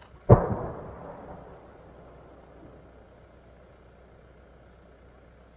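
A single deep boom from a mortar firing a 24-inch aerial firework shell, echoing and dying away over about a second, followed by faint low outdoor rumble as the shell climbs.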